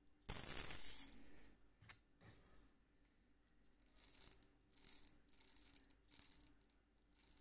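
Lead shot pellets rattling as they are spooned with a metal spoon into a copper scoop on a digital scale, while a 32-gram shot charge is measured out for shotgun shells. There is a loud rattling burst under a second in, then a run of shorter, quieter pours near the end.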